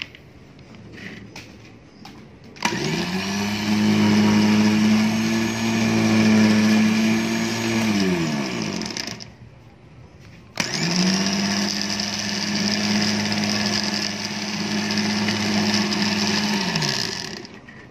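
Hi-Winch 9500STD electric winch motor run twice on the bench with no load, each run a steady whine of about six to seven seconds that starts suddenly and winds down, falling in pitch, as the motor stops.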